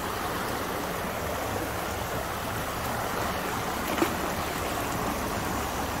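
Small rocky creek flowing and splashing over stones, a steady rush of water, with one brief sharp knock about four seconds in.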